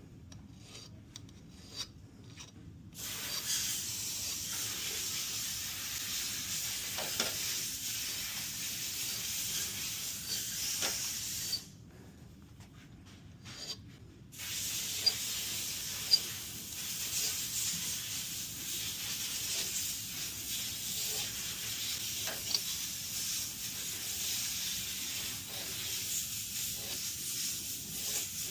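Steady scratchy rubbing of steel being worked by hand as a 1911 hammer spur is bobbed and rounded off. It starts about three seconds in, stops for a couple of seconds near the middle, then carries on.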